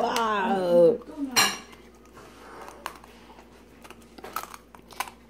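Dachshund chewing on a crispy fried pork-leg bone: sharp clicks and crunches of teeth on bone and crackling skin, scattered irregularly, with one loud crack about a second and a half in. A drawn-out falling voice sounds in the first second.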